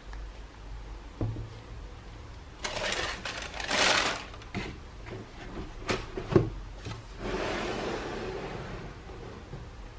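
Tissue paper crinkling and rustling as gloved hands fold it inside a cardboard shoebox. Then come a few sharp cardboard taps and knocks, the loudest about six seconds in, and a softer sliding swish of cardboard as the box lid is handled.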